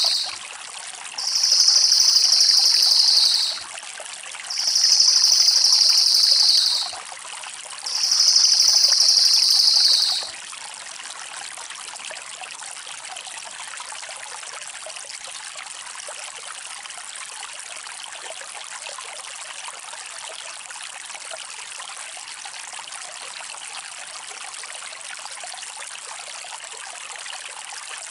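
Cililin (crested jay) giving three long, rapid, high-pitched rattling trills, each about two seconds long and falling slightly in pitch, the last ending about ten seconds in. A steady sound of a trickling stream runs underneath throughout.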